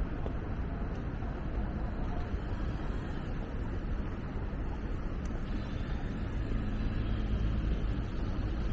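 City street ambience dominated by a steady low traffic rumble. A vehicle's engine hum rises a little louder from about six and a half seconds in.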